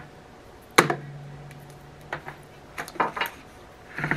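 Handling knocks from a CRUXGG 9-quart air fryer's housing as hands move and turn it on the counter: one sharp knock about a second in, then a few lighter taps near the end. A short low steady hum follows the first knock.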